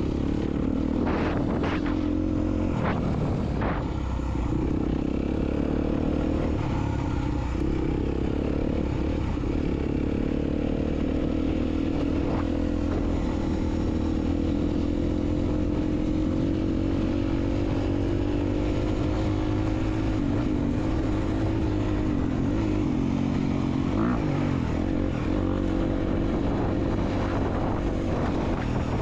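Dirt bike engine running on the track, its pitch slowly rising and falling with the throttle and dropping sharply about twenty-four seconds in. A few sharp clacks come in the first four seconds.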